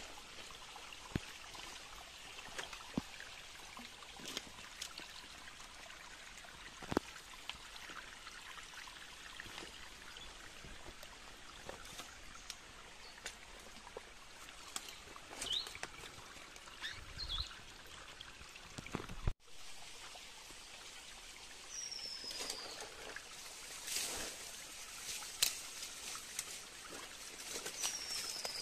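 A small flow of water trickling and pouring steadily, with scattered sharp ticks. A few short, high bird chirps come in the second half, two of them falling in pitch. The sound drops out for an instant about two-thirds of the way through.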